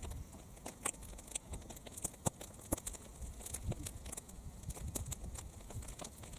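A fire of sun-dried weeds burning, crackling and popping irregularly over a low rumble of wind.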